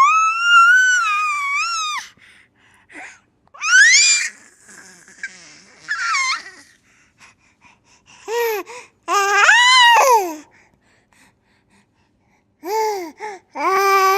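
Baby laughing and squealing in high-pitched bursts that rise and fall in pitch. A long squeal at the start, more squeals through the middle and a run of laughter near the end, separated by short quiet gaps.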